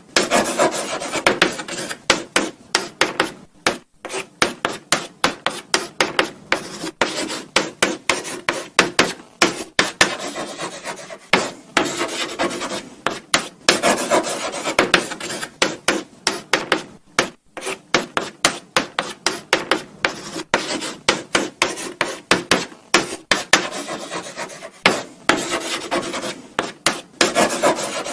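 Chalk writing on a blackboard: a continuous run of short scratchy strokes, several a second, with brief pauses between words.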